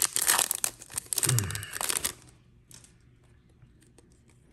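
Foil trading-card pack wrapper crinkling as it is torn and peeled off the cards for about two seconds, then only faint clicks of the cards being handled.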